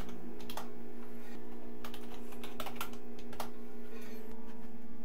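Typing on a computer keyboard: irregular clusters of key clicks, thinning out after about three and a half seconds, over a steady low hum.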